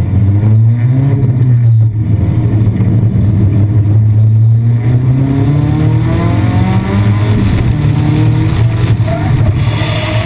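Nissan 240SX drift car's engine running hard under throttle, its pitch sliding up and down as the revs rise and fall through the slide. A hiss comes in near the end.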